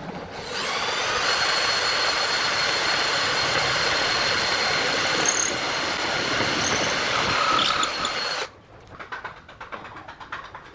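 An angle-grinder-powered tool runs loudly with a steady high whine for about eight seconds, then stops abruptly. Faint clicks and taps follow.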